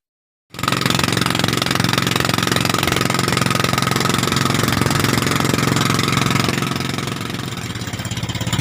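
Fishing boat's inboard engine running steadily at cruising speed, with a fast, even beat. It cuts in about half a second in and dips slightly near the end.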